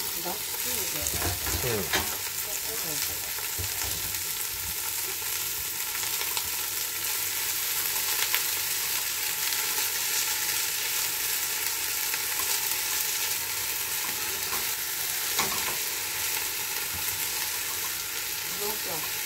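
Food sizzling steadily in a hot frying pan, with a few short clicks of a utensil against the pan.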